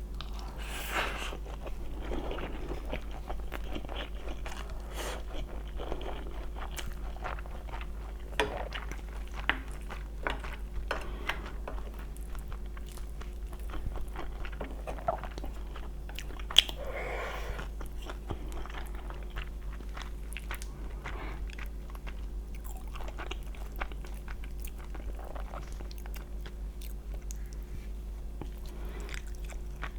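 Close-miked eating: chewing and biting, with scattered crunchy bites and sharp mouth clicks, over a steady low hum.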